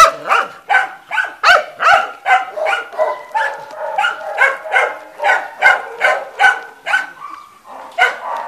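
Dog barking over and over in quick, high-pitched barks, about two to three a second.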